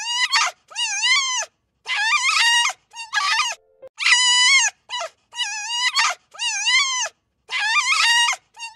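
A wild canid giving a string of short, high-pitched whining calls, about one a second, each wavering up and down in pitch, with silent gaps between.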